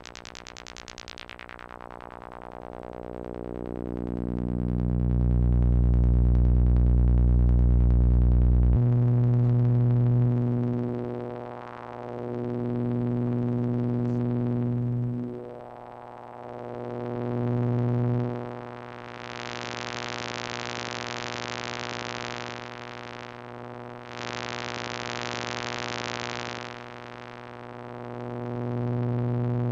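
Sawtooth-wave synth drone through a vactrol-based Verbos 291v bandpass filter, its center frequency swept by hand. The bright upper harmonics fade within the first couple of seconds and the tone deepens and swells to its loudest. After a sudden change about nine seconds in, the filtered band rises and falls several times, twice opening up into a bright upper range.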